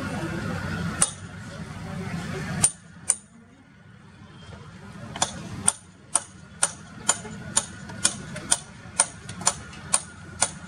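A low rumble with a couple of sharp clicks, cut off suddenly a little under three seconds in. About five seconds in, steady sharp ticking starts, about two clicks a second.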